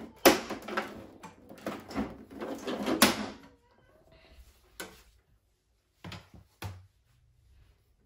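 Plastic side panel of a Hisense portable air conditioner being pried and pulled off its housing: a run of loud plastic clatters and snaps for the first three seconds or so, then a few separate sharp clicks.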